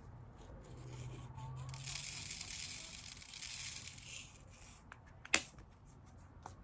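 Plastic rustling and tearing for a couple of seconds, then a single sharp click.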